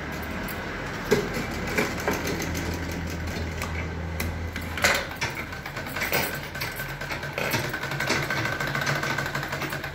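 Satyam sewing machine running steadily, stitching fabric, with a sharp click about five seconds in.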